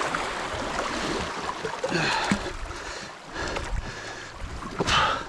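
Shallow seawater washing over rocks, with an inflatable boat's rubber pontoon rubbing and scraping on the rocks as it is slid off into the water. There are two louder scrapes, about two seconds in and near the end.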